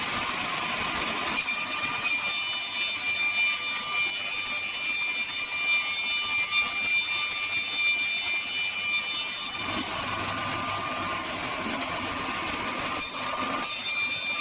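Aluminium composite panel CNC cutting and grooving machine running, a steady mechanical noise with a hiss and a high, steady whine of several tones. The whine fades about two-thirds of the way through and returns near the end.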